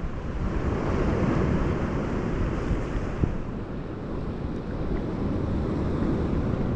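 Sea surf rushing onto the shore in a rough swell, mixed with wind buffeting the microphone; a steady, heavy rushing noise.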